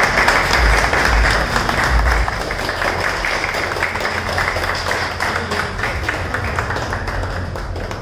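A small group of people clapping, loudest in the first couple of seconds and gradually dying down.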